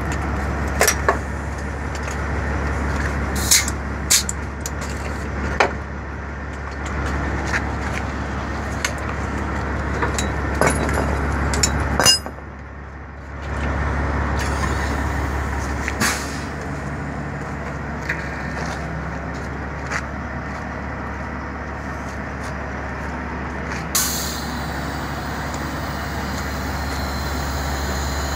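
Idling diesel dump truck giving a steady low hum, while air-line gladhand couplers, hoses and chains clink and clank as they are handled. A steady hiss comes in near the end.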